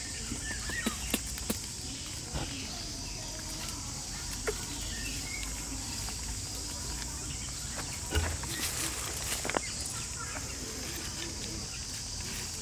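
Insects droning steadily in a high, even hiss, with scattered small clicks and rustles and a few faint short chirps.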